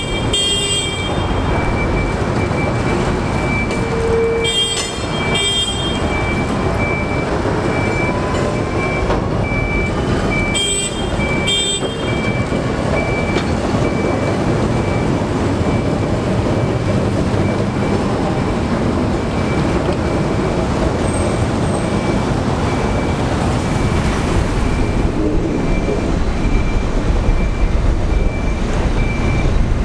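Railcar mover's diesel engine running steadily as it tows a dead electric locomotive, with a repeating high warning beep throughout. A horn gives short toots in pairs, near the start, about five seconds in and about eleven seconds in.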